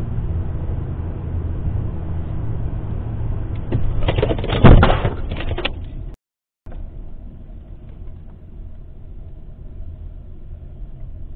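Car driving at about 48 mph with steady road and engine rumble, then a loud crash with rattling about four to five seconds in as it hits a deer. The sound cuts out for a moment, and the road noise goes on more quietly.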